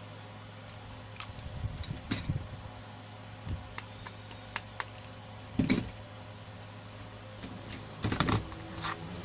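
Irregular small clicks and taps of hand tools and wire on a blender armature being rewound, with a louder clatter just before six seconds in and another around eight seconds in. A steady low hum runs underneath.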